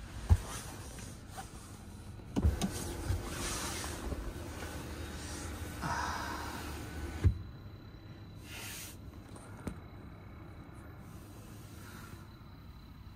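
A small electric motor in a Hyundai Ioniq 5's cabin runs steadily for about five seconds, as a powered window or glass-roof shade moves. Sharp knocks of handling come about two seconds in and again as the motor stops, with a louder knock at the very start.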